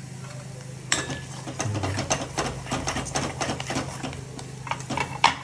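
A metal spoon stirring and scraping in a steel kadai of frying onion-tomato masala, making rapid, irregular clicks that start about a second in and grow louder near the end. A low, steady hum runs underneath.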